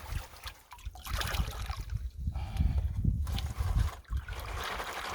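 Water sloshing and trickling in a gold pan as big rocks are rinsed off and lifted out, coming in uneven splashes with short pauses.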